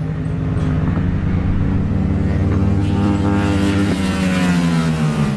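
Motorcycle engine running steadily, growing louder and brighter past the middle as if revved, then cutting off suddenly at the end.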